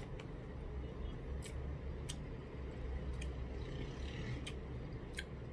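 A person eating a bite of steamed embutido: scattered small mouth clicks and smacks of chewing over a low steady hum.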